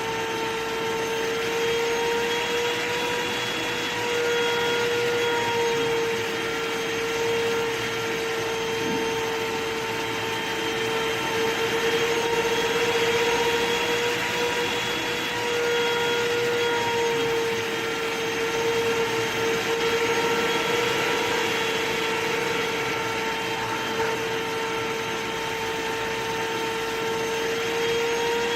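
Vacuum cleaner running steadily: a constant motor whine over a rush of air, its loudness rising and falling a little.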